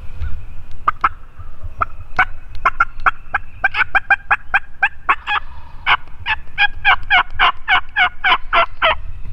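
Wild turkey yelping: a long run of short calls, each falling in pitch, that begins sparse and quickens, breaks off briefly midway, then carries on at about three a second before stopping near the end. A low rumble runs underneath.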